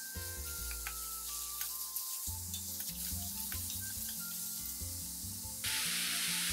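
Vegetables and sea cucumber sizzling in a hot steel wok as they are stir-fried, with the metal spatula clicking and scraping against the pan. Soft background music plays underneath. The sizzle gets louder about five and a half seconds in.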